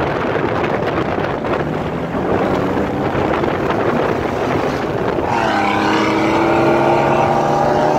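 Jeep Wrangler JK driving at speed, with wind and road rush. About five seconds in, a steady engine drone comes up over the rush and slowly rises in pitch.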